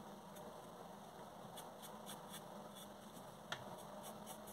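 Faint pencil strokes scratching on paper as an eyebrow is sketched, a run of short light strokes, with one sharper tick about three and a half seconds in.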